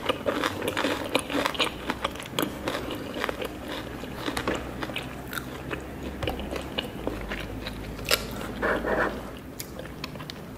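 Close-up crunchy chewing and biting, a dense run of short crackles and clicks.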